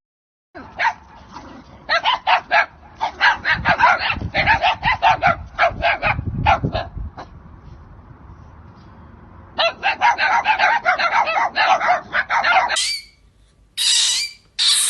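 An animal calling in quick runs of short, sharp bursts, two runs of them, then two louder calls near the end.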